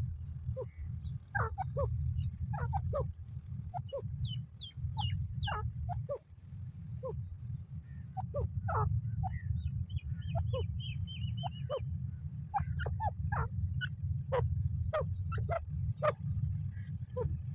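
Grey francolin (teetar) calling: many short, sharp notes, each sweeping downward in pitch, given irregularly over a steady low rumble.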